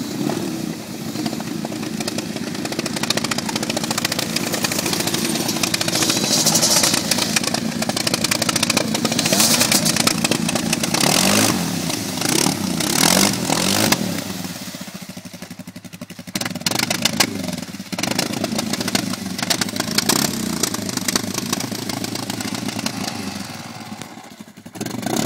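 ATV engine revving up and down under load while the quad sits stuck in deep mud, its wheels spinning and throwing mud. The revs ease off briefly past the middle, then pick up again.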